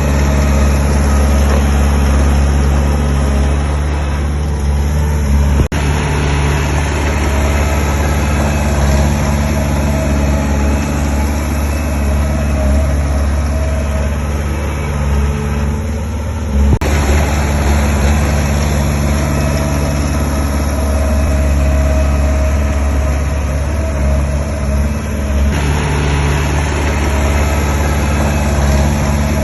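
Heavy diesel engine of construction machinery running steadily at a constant pitch, with two brief sharp clicks about 6 and 17 seconds in.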